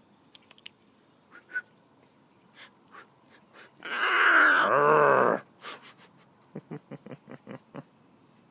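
Blue-and-gold macaw giving one loud, drawn-out call of about a second and a half about halfway through, its pitch bending up and down, followed by a quick run of soft clicks. Crickets sing steadily underneath.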